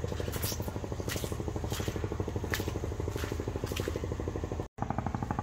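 Footsteps crunching on a dirt trail, about six steps, over a steady low hum with a fast fine rhythm.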